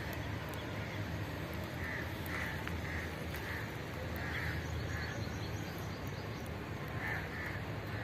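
Crows cawing, a string of short caws that often come in pairs, over a steady low background rumble.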